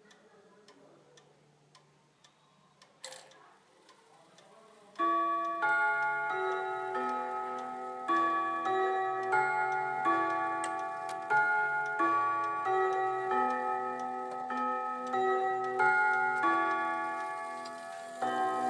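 Kieninger chime clock ticking softly, with a sharp click about three seconds in. About five seconds later its chimes start, playing a melody phrase after phrase, each note struck and left ringing.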